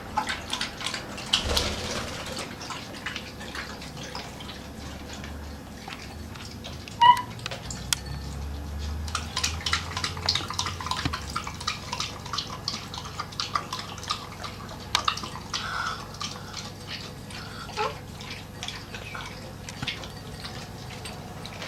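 Lovebird nibbling and tearing paper with its beak: a run of small, crisp clicks and crackles, with one short high chirp about seven seconds in.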